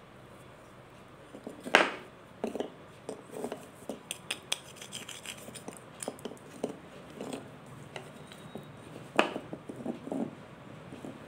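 Mothballs being crushed and crumbled by hand: an irregular run of dry crunches and crackles. Two crunches are louder than the rest, one about two seconds in and one near the end.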